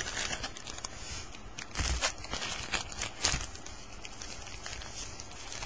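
Foil-wrapped trading card packs crinkling as they are handled and stacked on a table, with a few sharper taps about two and three seconds in.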